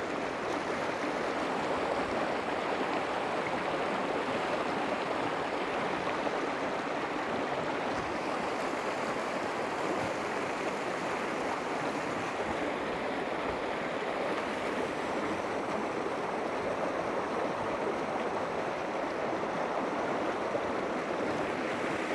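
Clear spring-fed stream water rushing and splashing over rocks and a low stone ledge, a steady, even flow sound.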